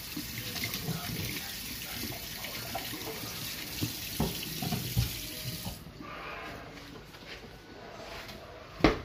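Kitchen tap running into a stainless steel sink as hands are washed under it, with a few splashes and thumps. The water shuts off about six seconds in, and a single sharp knock comes near the end.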